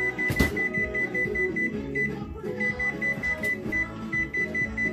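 Electric oven's control panel giving a rapid run of short, high-pitched beeps, broken off and resumed a few times, as its buttons are pressed to set the preheat temperature. Background music plays underneath.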